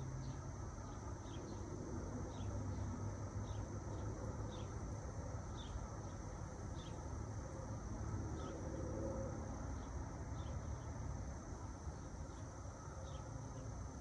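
Summer outdoor ambience: a steady high drone of cicadas with short chirps repeating about once a second, over a low rumble of light distant traffic.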